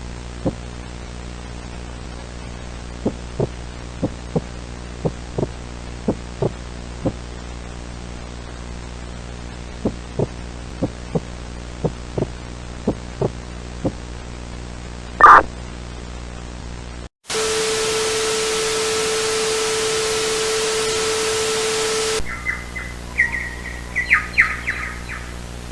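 Electronic horror sound design: a low droning hum with irregular dull thumps, some in pairs, then a short loud burst about fifteen seconds in. A moment later the sound drops out and cuts to about five seconds of loud static carrying a steady tone, which stops abruptly and gives way to the hum with short glitchy electronic chirps.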